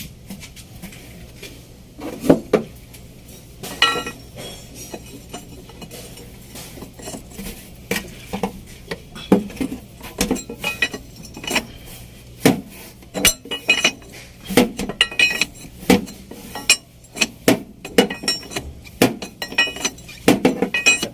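Metal hand tools and small metal parts clinking and knocking together at irregular intervals, some strikes ringing briefly, as the solenoid valve on a common-rail diesel's fuel system is being changed.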